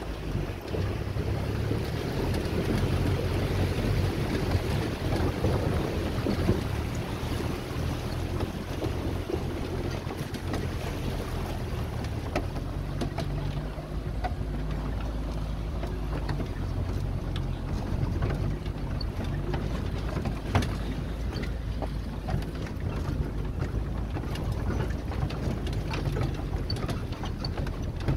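Maruti Suzuki Gypsy engine running steadily as the vehicle drives, with scattered knocks and rattles. Wind buffets the microphone over the first several seconds.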